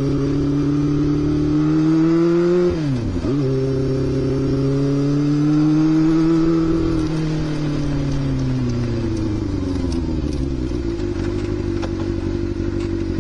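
Yamaha FZR400's inline-four engine pulling on the move, its pitch rising with a brief sharp dip in revs about three seconds in. It climbs again, then the revs fall off from about halfway and settle to a lower steady note.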